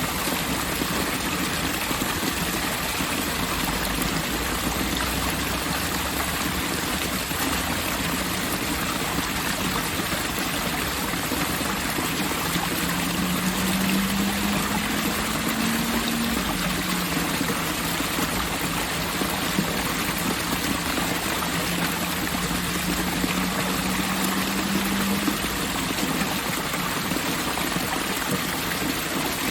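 Steady rush of water running in an outdoor water fixture, a continuous stream sound with no pauses. Through the middle a low hum rises in pitch, drops, and then holds.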